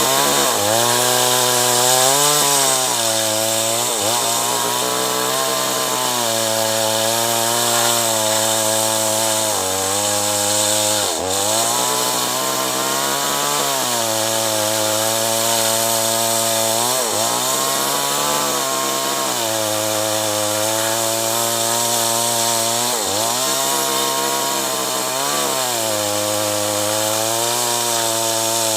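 Gasoline chainsaw running at high revs, cutting acacia wood. Its engine note sags briefly and climbs back every few seconds as the chain bites and frees.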